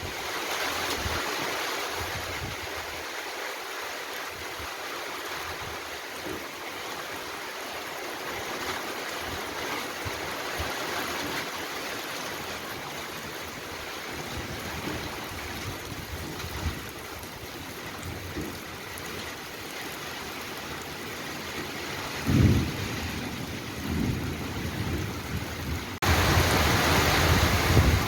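Heavy rain pouring steadily in a thunderstorm, with a few short low rumbles late on. It gets abruptly louder near the end.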